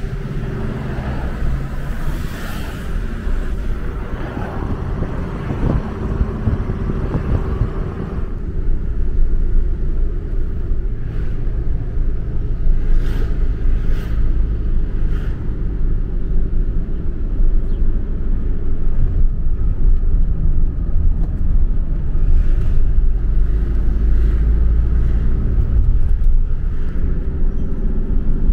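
Steady engine and road rumble of a moving vehicle, heard from inside the cab. About eight seconds in the higher road and wind noise drops away and the low rumble grows heavier.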